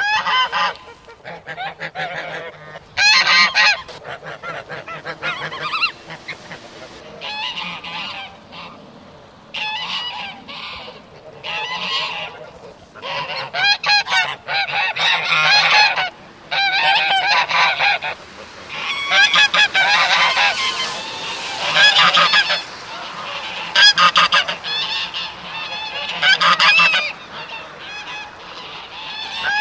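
A flock of geese honking over and over, several birds calling at once in loud bursts with brief lulls between them.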